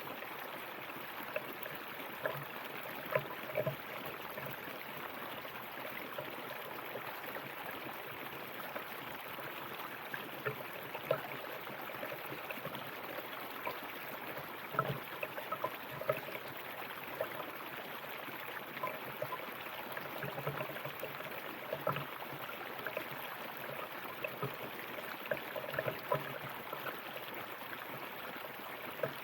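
A river flowing steadily: a constant rush of water with small irregular splashes and gurgles over stones.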